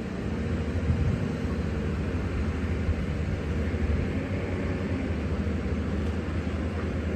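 A large engine running steadily, a continuous low hum at an even pitch.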